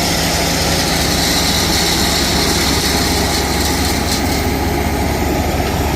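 Heavy engine running steadily at a constant speed.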